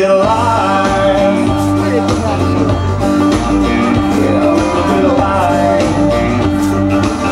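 Country music with a steady beat, bass and guitar, some notes sliding in pitch.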